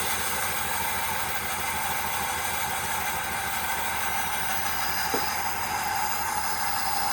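2004 Dodge Dakota's 4.7-litre V8 idling steadily after a restart, running rough and shaking with random misfires on the left bank.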